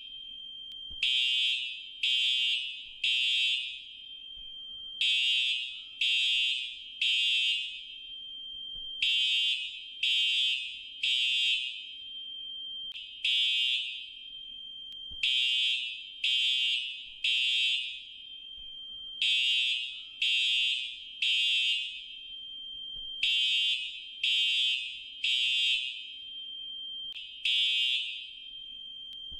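Fire alarm horn sounding a loud, high-pitched evacuation signal in the temporal-three pattern: three blasts about a second apart, then a short pause, repeating every few seconds.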